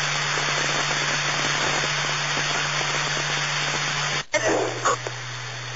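Police scanner radio static: an open channel's steady hiss with a low hum under it. It cuts out abruptly about four seconds in, then comes back with a brief crackle and a quieter hiss.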